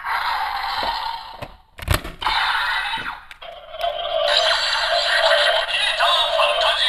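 Electronic sound effects and music from a DX Kamen Rider Blades toy belt's small speaker, with a short break and a sharp plastic click about two seconds in. From about three and a half seconds in, a steady looping standby tune plays.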